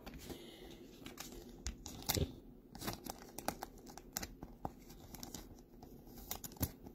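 Glossy trading cards handled in the fingers, giving a soft, irregular scatter of small crackles and clicks.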